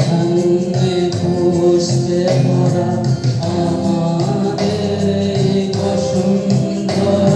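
A man singing a song into a handheld microphone through a PA, holding long notes over instrumental accompaniment with a steady beat.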